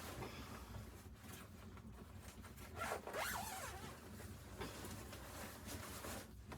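Repeated rasping, scraping strokes of friction noise, loudest about three seconds in, where a brief squeak wavers up and down.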